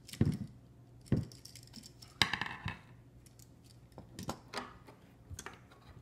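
Scattered clicks, taps and clinks of a new electrical outlet and its wires being handled, with a longer scraping rustle about two seconds in.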